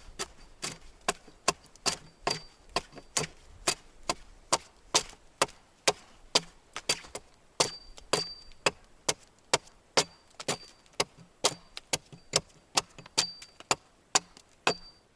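A steel hand tool striking wood in quick, steady blows, about two and a half a second, many with a short metallic ring.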